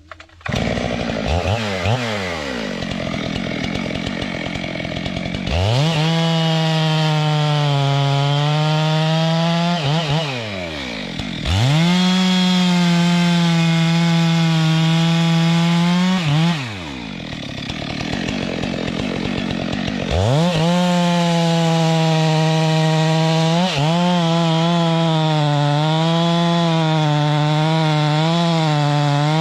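Two-stroke chainsaw revved up to full throttle three times, dropping back toward idle between runs. Near the end the engine note wavers and dips as the chain works through wood.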